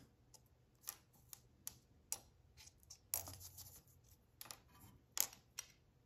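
Small disc magnets and aluminum toy parts clicking and tapping as they are handled and set down: a dozen or so faint, sharp clicks at irregular intervals.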